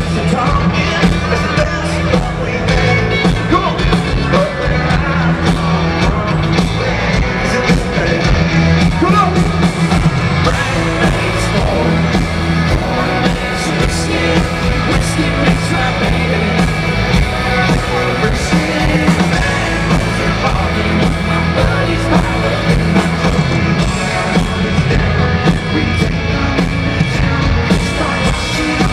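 Live country-rock band playing at full volume with a male lead singer, heard from among the crowd through a handheld recorder's microphone.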